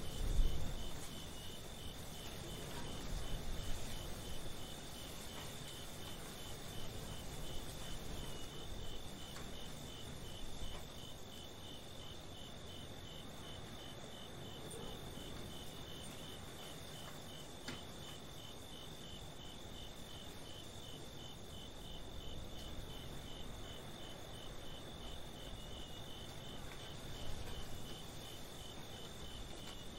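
Crickets chirping in a steady, evenly pulsed rhythm, over a low, uneven rumble that swells briefly at the start and near the end.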